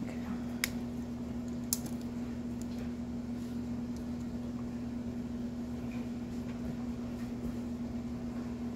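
A steady, even machine hum, with two light clicks about a second apart near the start.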